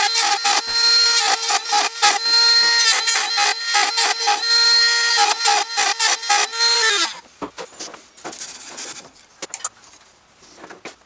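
Handheld rotary tool with a small burr running at a high steady whine while it carves dimples into a turned wooden wand, each touch on the wood adding a short rasp. About seven seconds in it spins down and stops, leaving only faint handling clicks.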